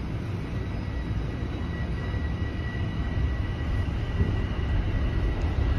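Toronto Rocket subway train pulling out of the station, heard from inside the car: a low rumble of the wheels on the rails that grows louder, with a steady high whine that fades near the end.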